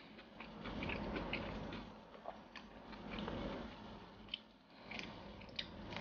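Quiet chewing of a mouthful of rice and chicken rendang, with scattered small clicks and rustles of fingers gathering rice and rendang in a meal tray.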